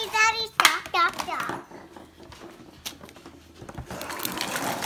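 A young girl's high voice exclaiming excitedly for about the first second and a half. After that come light clicks and soft rustling of small toy packaging being handled.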